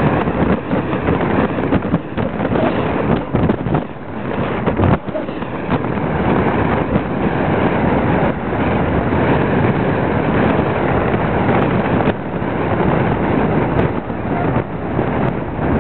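Wind rushing and buffeting the microphone from a moving vehicle, with the vehicle's road and running noise beneath it; the level swells and dips as gusts hit.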